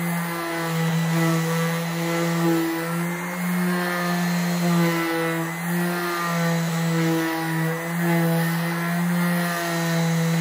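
Worx random orbital sander running on a wooden panel with 120-grit paper: a steady motor hum that wavers slightly in pitch and level as the sander is pushed across the wood.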